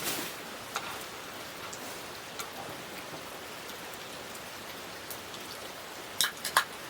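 Steady rain falling, with scattered drops ticking and a few sharper, louder taps about six seconds in.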